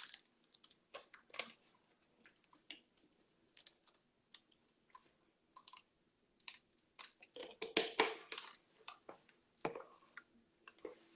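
Scattered small clicks and taps at irregular intervals, with a louder cluster of them about seven to eight and a half seconds in.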